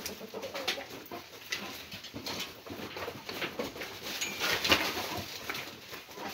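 Chickens clucking softly in a coop, with scattered clicks and scuffs from their feet in the litter and a louder burst of noise about four and a half seconds in.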